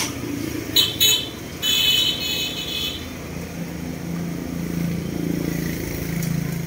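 Street traffic: a motorbike engine running, its low hum building in the second half. Before it come two sharp clicks and a high electronic beep about two seconds in, lasting about a second.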